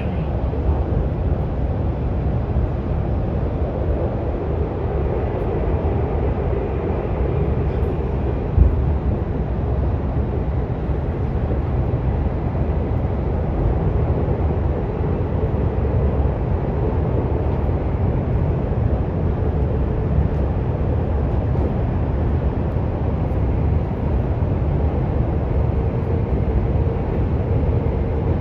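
Beijing Daxing Airport Express train running, heard inside the carriage: a steady low rumble of wheels and running gear, with one brief knock about eight and a half seconds in.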